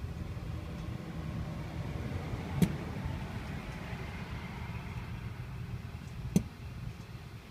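2007 Mini Cooper S, engine switched off, giving two sharp single bangs about four seconds apart over a steady low rumble. The banging comes after shutdown and lasts longer the hotter the car has been run.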